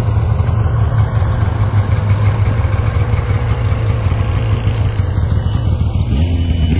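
An engine running steadily and loudly at an even speed. Near the end the sound grows duller as its higher part falls away.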